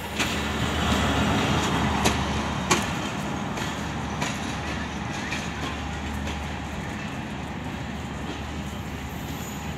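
Diesel-hauled passenger express coaches rolling past and pulling away, wheels rumbling and clicking over the rail joints, with a steady low hum underneath. Two sharp clicks come about two seconds in, then the rumble slowly fades as the train draws away.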